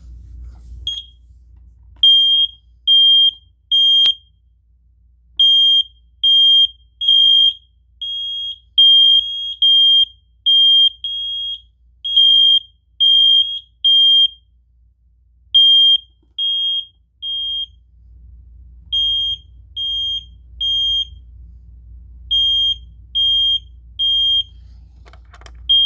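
Smoke alarm sounding its loud, high-pitched alarm beep, mostly in groups of three with a short pause between groups. It was set off by a push of its button.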